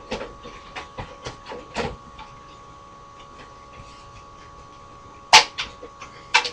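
Xbox 360 parts being handled during disassembly: a quick run of small clicks and knocks, then two sharp, louder clacks about a second apart near the end.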